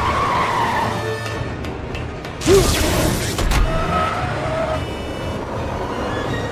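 Film soundtrack: music over a steady rumbling action-scene background, with a sudden loud impact about two and a half seconds in and a smaller hit about a second later.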